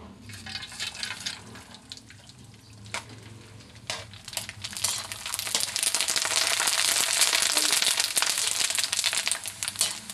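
Sun-dried penne macaroni deep-frying in hot oil in a wok. The sizzling swells loud about five seconds in and stays strong as the pasta puffs up. A few sharp clicks come through the sizzle.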